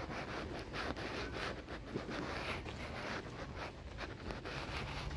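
Light rain: an irregular patter of small ticks over a steady wet hiss.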